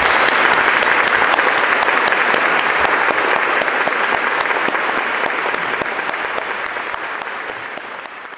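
Audience applauding, a dense patter of many hands clapping that fades gradually away over the second half.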